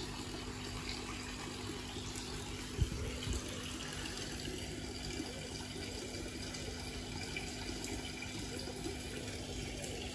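Steady rush of water running into a koi pond, with a steady low hum underneath and a single short thump about three seconds in.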